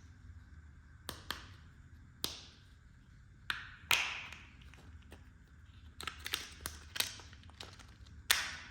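Small plastic toy kitchen pieces being handled and set down: a series of irregular taps and clicks, some with a short ring, the loudest about four seconds in and near the end.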